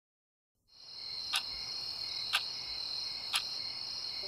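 Crickets chirping in a steady high trill, with a quartz alarm clock ticking once a second over it. The sound fades in after a moment of silence.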